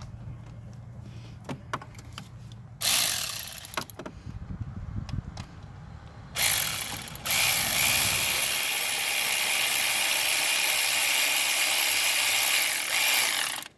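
Handheld power tool spinning a long socket to drive a water pump bolt. It comes in two short bursts, then runs steadily for about six seconds before stopping just before the end. Light ticking of the socket and bolt is heard before the first burst.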